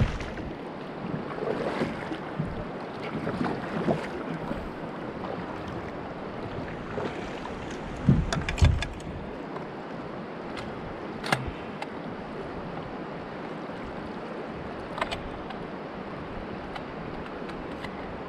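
Swift river current rushing steadily around a kayak, with the splash of double-bladed paddle strokes in the first few seconds. Two dull knocks come around eight seconds in, and a few sharp clicks later on.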